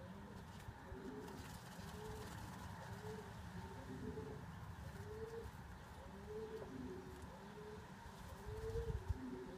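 Domestic pigeon cooing over and over, about one short rising-and-falling coo a second, over a low rumble.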